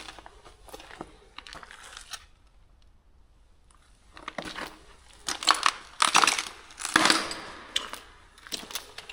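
Footsteps crunching over debris-strewn ground, irregular and uneven. There is a short quiet pause, then a louder run of crunches in the second half.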